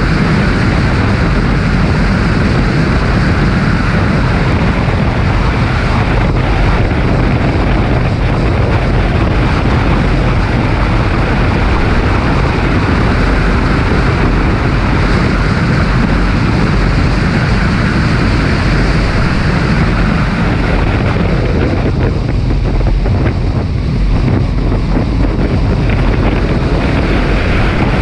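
Car at speed on a race track: engine and road noise under heavy wind buffeting on the microphone. The sound thins briefly about three quarters of the way through.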